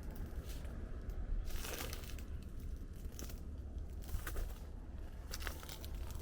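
Irregular crunching and crinkling steps underfoot, with a steady low rumble beneath.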